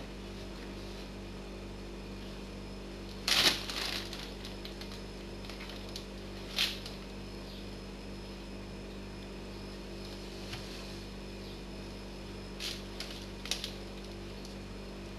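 Clear plastic bag rustling and crinkling as a cat paws and bites at it, in a few short bursts, the longest and loudest about three seconds in. A steady low hum runs underneath.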